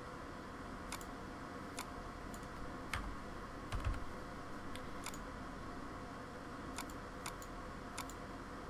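Sparse, irregular clicks from a computer mouse and keyboard over a faint steady hum, with a duller, louder knock a little under four seconds in.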